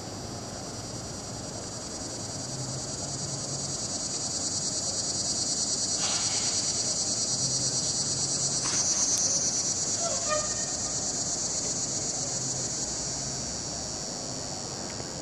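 Chorus of swamp cicadas (Neotibicen tibicen) buzzing, a steady high-pitched drone that swells to a peak about halfway through and then fades again.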